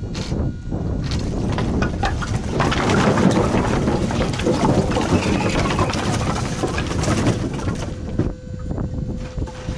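Pickup truck towing a trailer loaded with firewood along a road: deep road and engine rumble with constant clattering and rattling, which eases briefly near the end.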